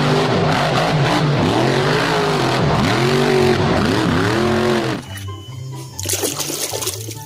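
Lifted pickup monster truck's engine revving hard, its pitch rising and falling several times amid loud noise, over background music. It cuts off about five seconds in, leaving the music and water splashing as a toy is scrubbed in a tub.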